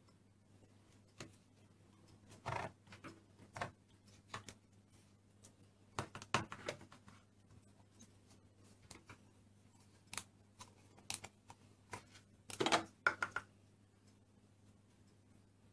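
Plastic Play-Doh moulds and tools being handled and pressed into dough: scattered taps, clicks and short rustles, loudest about two and a half, six and twelve and a half seconds in, over a faint steady hum.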